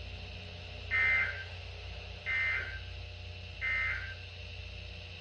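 NOAA Weather Radio SAME digital data bursts through a weather radio's speaker: three short, harsh electronic warbles about a second and a half apart, the End of Message code that closes the weekly test broadcast. A steady low hum runs underneath.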